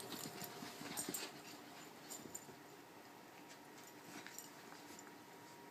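Faint sounds of a puppy at play, with a cluster of short, sharp noises in the first second and a half and a few more around two and four seconds in.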